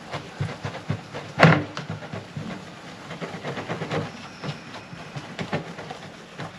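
Cloth rubbing polishing compound by hand over a plastic Porsche 911 engine cooling shroud: an uneven run of scrubbing swishes and scuffs, with one louder knock about a second and a half in.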